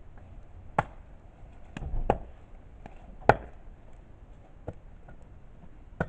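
Wood fire crackling: sharp pops at irregular intervals, the loudest about halfway through, over a low steady hiss.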